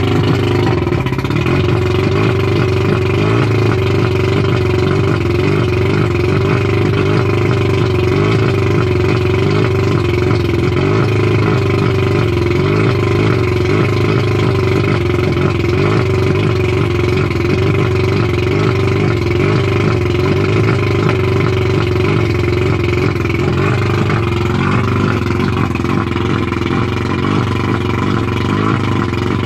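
1989 Mercury 100 two-stroke outboard motor running steadily at a fast idle of roughly 1200–1400 rpm, out of the water on its trailer.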